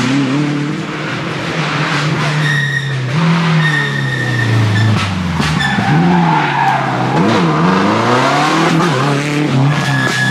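Subaru Impreza rally car's engine revving hard as it approaches and passes at speed. The revs rise and drop again and again with the gear changes and swing up and down quickly around the middle.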